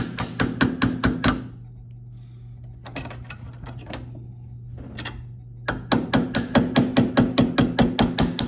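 Hammer tapping quickly on metal, knocking over the locking tabs of a tab washer on a Triumph TR6 steering rack. There is a fast run of about eight taps at the start, a few more about three seconds in, and a longer fast run from about six seconds on.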